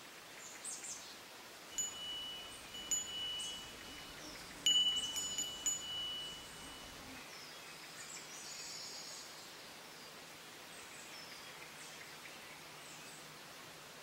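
A metal wind chime rings about five times in the first six seconds, each strike leaving a clear, high tone that rings on. Faint bird chirps follow.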